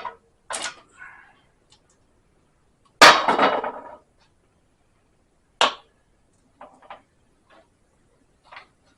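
Metal tools knocking and prying while the pinion seal is driven out of a GM 8.5 rear axle housing: one loud sharp knock about three seconds in that trails off over about a second, a sharp click a little later, and a few light ticks.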